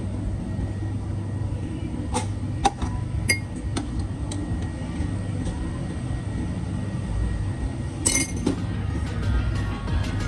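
Light metallic clinks of a stainless steel milk jug and spoon, about five in two seconds, over a steady low hum, with a short hiss a little before the end.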